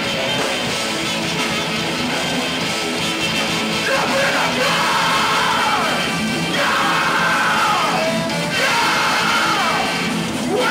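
Ska-core band playing live with electric guitars. From about four seconds in, the singer shouts three long phrases over the band, each sliding down in pitch.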